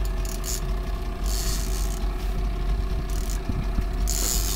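A fishing boat's engine idling steadily with a low rumble, crossed by a few short bursts of hiss.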